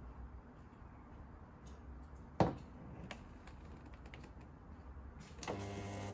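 Stud-welding dent puller gun firing a pin onto a car sill: a short electric buzz of about half a second near the end as the weld is made. Before it, a single sharp click about two and a half seconds in.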